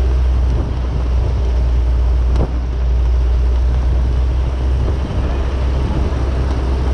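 An engine running steadily with a strong low hum and road or wind noise, heard from aboard the moving vehicle. A single sharp click about two and a half seconds in.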